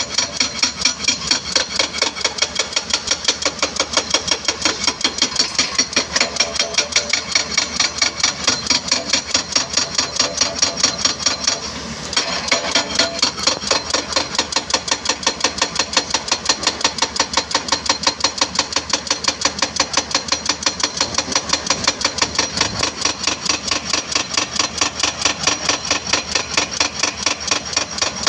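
Excavator-mounted hydraulic breaker hammering, a steady rapid run of metallic blows at about three to four a second, with a brief pause about halfway through.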